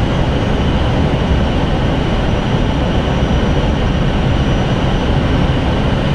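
Airbus A320 cockpit noise on short final: a loud, steady rumble of airflow and engines, with a faint, thin, high steady tone on top.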